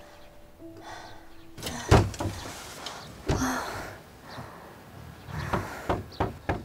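Quiet background music stops about a second and a half in, followed by wooden knocks and thumps: one loud thump, another about a second and a half later, and a quick run of sharper knocks near the end.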